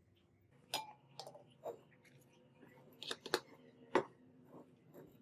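Glass lab beakers and a plastic filter funnel being handled and set down on a benchtop: a series of light clinks and knocks, the loudest about four seconds in.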